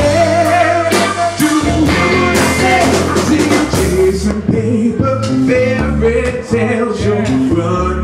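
Live soul band playing: drum kit, bass and electric guitar under the male lead singer's voice.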